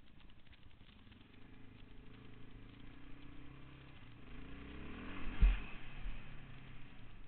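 Yamaha Raptor 660 sport quad's single-cylinder four-stroke engine running and revving up as it accelerates, with a heavy thump about five and a half seconds in, the loudest moment.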